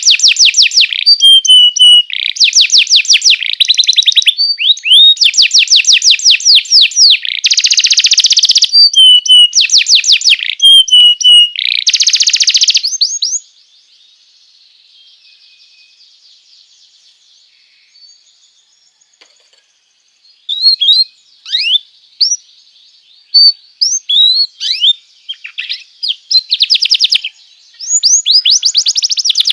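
Domestic canary song: loud, fast trills of rapidly repeated notes in phrase after phrase, breaking off about 13 s in for a quiet gap of several seconds. Then come scattered single chirps and short rising whistles, and the rapid trills resume near the end.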